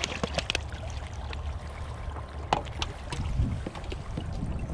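Water splashing and lapping against kayak hulls as the kayaks move through the water, with a few sharp knocks and a steady low rumble underneath.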